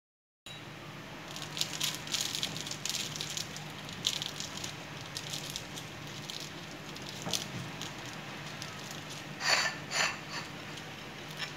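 Fork cutting through crisp baked phyllo pastry, the flaky layers crackling in a run of short, dry crackles, with two louder crunches near the end, over a faint steady low hum.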